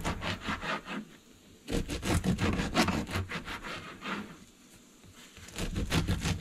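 Serrated bread knife sawing through a crusty round loaf in quick back-and-forth rasping strokes. The sawing pauses briefly about a second in and again a little past the middle.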